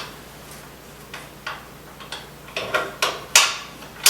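Scattered light clicks and knocks as mitre saw parts are handled during assembly, with a small cluster and a sharper knock past the three-second mark.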